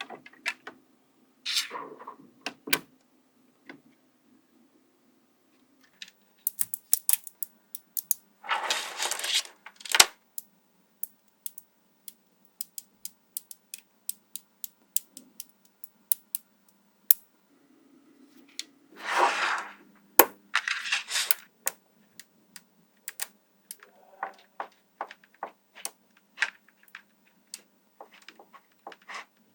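Small magnetic balls clicking sharply together one at a time as they snap into place, with two longer clattering rattles where a cluster of balls jostles together.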